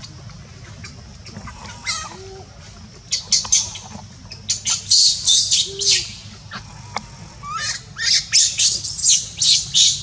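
Monkeys screeching in quick series of short, shrill squeals, starting about three seconds in and coming in loud clusters.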